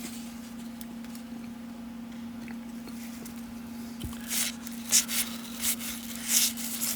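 Baseball cards being handled and flipped through, a series of short dry rustles starting about four seconds in, over a steady low hum.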